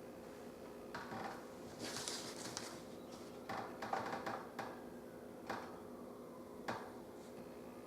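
Scattered clicks, taps and rustles of small laptop screen parts and screws being handled, in a few short clusters over a low, steady hum.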